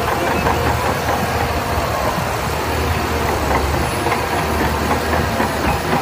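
Shantui crawler bulldozer's diesel engine running steadily with a low hum and a broad hiss while the machine pushes sand with its blade.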